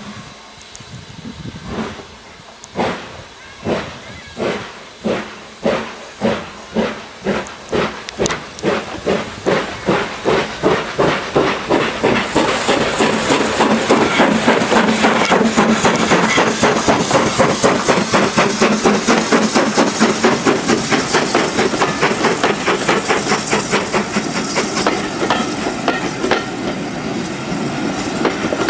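BR Standard Class 9F 2-10-0 steam locomotive 92214 pulling away from a stand. Its exhaust beats start about a second apart and quicken into a fast chuff, growing louder with a spreading hiss of steam as it comes close. Near the end the beats blur into the steady run of the coaches rolling past.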